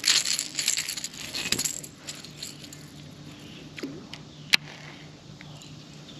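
Metallic rattling and jingling for about two seconds, then quieter, with one sharp click about four and a half seconds in, over a faint steady hum.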